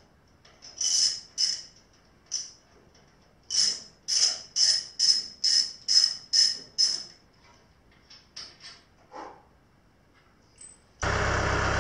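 Ratchet wrench clicking in short bursts, about two a second in the middle stretch, as the Allen head screws holding the Robland X-31 table top down are backed out. Near the end, a cut to a tractor engine idling steadily.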